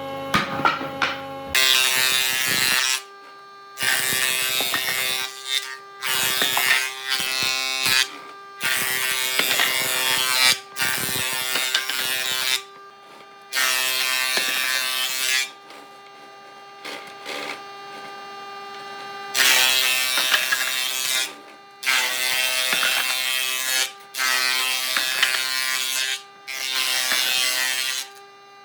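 Handheld electric power tool working wood: its motor whines steadily throughout, with about a dozen bursts of rough grinding noise, each one to three seconds long, as it is pressed into the wood and lifted off again.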